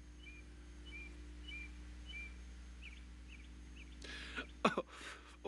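A small bird chirps with short single notes, about two a second. About four seconds in, a sick man starts groaning and gasping in pain.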